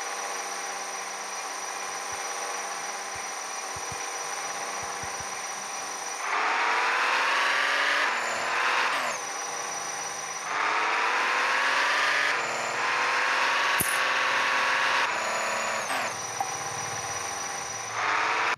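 Small electric motor of a toy car whirring steadily, speeding up with a rising whine about six seconds in and again about ten seconds in, and winding back down in between and near the end. There is a single sharp click partway through.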